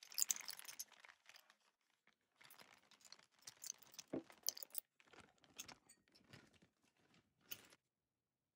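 Thin clear plastic piping bag crinkling in the hands as stiff meringue is scraped into it, in irregular bursts that stop near the end.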